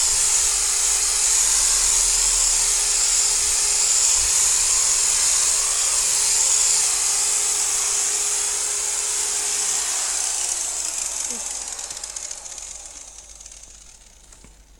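Electric polisher buffing car paint with compound, running steadily, then switched off about ten seconds in and winding down until it fades out.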